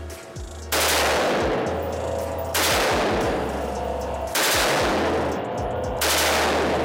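SIG SG 551-2 rifle in 5.56 NATO firing four loud reports about two seconds apart, each sharp at the start and trailing off in a long echo off the walls of an indoor range.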